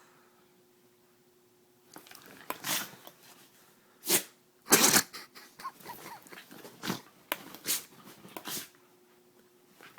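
Dog sneezing over and over in short, sharp bursts, excitement sneezes. They start about two seconds in, the loudest comes about five seconds in, and they die away near the end.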